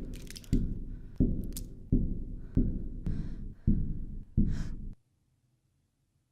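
A person breathing hard in quick, heavy gasps, about one and a half breaths a second. It cuts off abruptly about five seconds in.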